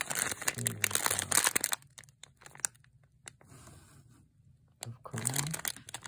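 Gold foil wrapper of a butter waffle biscuit pack crinkling as it is handled, dense for about the first two seconds, then only a few faint crackles.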